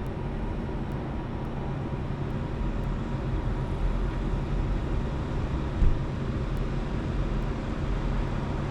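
Steady low rumble with a faint constant hum, the ambient noise of an EV fast-charging site, with a single brief knock about six seconds in.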